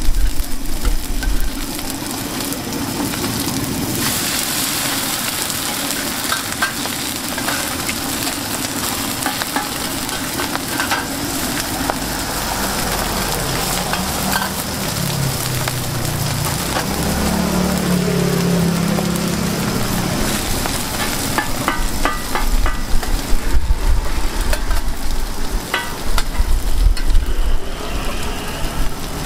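Mussel pancake batter (hoi tod) sizzling in hot oil on a wide flat griddle pan. In the last several seconds, metal spatulas scrape and clack against the pan as the pancake is worked.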